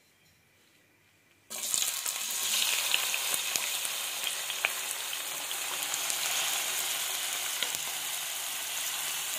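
Chopped tomatoes sizzling in hot oil in a frying pan, the sizzle starting suddenly about a second and a half in after near silence and then running steadily with scattered small crackles.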